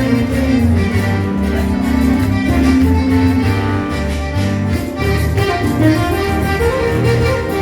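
Live Latin band playing an instrumental passage: a held melody line over a pulsing bass and a steady beat.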